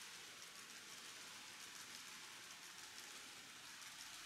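Faint, steady fine rattle and hiss of an N-gauge model train running on its track, the small wheels rolling over the rail joints.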